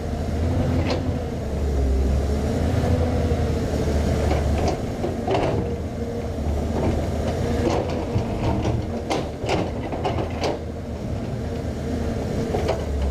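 Hydraulic excavator running under load, its diesel engine a steady drone with a wavering hydraulic whine over it, while the steel bucket teeth scrape and knock against a hard earth-and-rock wall. The scrapes come in a quick cluster about nine to ten and a half seconds in.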